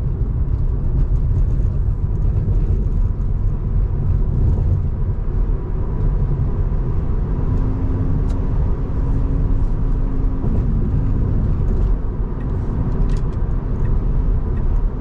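Steady low rumble of road and tyre noise heard inside the cabin of a Tesla Model 3 electric car on the move. A faint steady hum comes in for a few seconds in the middle.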